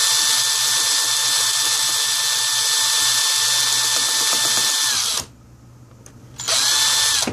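Cordless drill running steadily with a small bit, drilling into the head of a stripped laptop screw. It stops about five seconds in, then runs again briefly near the end.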